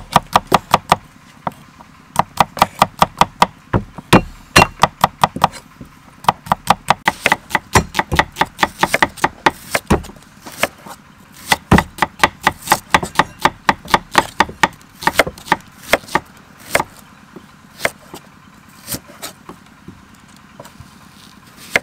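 Chef's knife slicing garlic cloves and then onion on a thick round wooden chopping board: quick runs of sharp taps of the blade on the wood, with short pauses between the runs.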